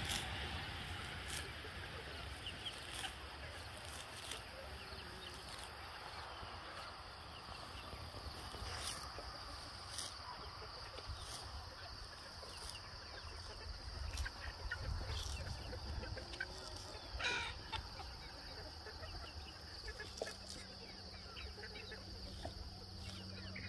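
Small knife slicing through grass stems near the ground, short cutting and rustling strokes repeating about every second or so, over a steady high drone.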